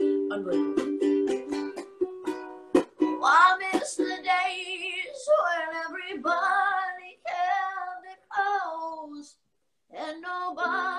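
Ukulele strummed in a quick rhythm of chords for about three seconds. Then a solo voice sings a long, wavering melody with vibrato over lighter ukulele. The sound cuts out briefly about nine seconds in, and the singing picks up again.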